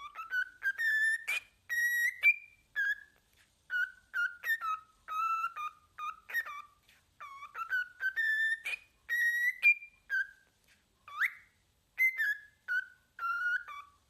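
Cockatiel whistling a quick run of short, clear notes that rise and fall in pitch like a tune. About eleven seconds in comes one sharp upward-swooping whistle.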